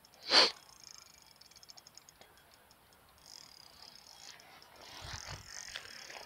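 A brief sharp sound about half a second in, then a run of fast, even ticking from a spinning reel as a hooked catfish pulls on the bent rod, with faint wind and handling noise near the end.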